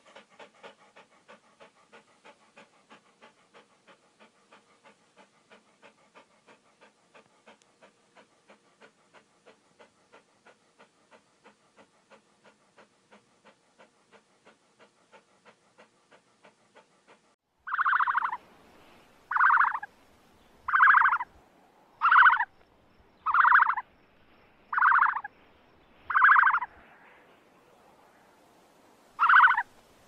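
Small dog panting quickly and faintly, about two pants a second. From about 17 seconds in, a much louder, harsh animal sound repeats eight times, each under a second long and roughly one and a half seconds apart.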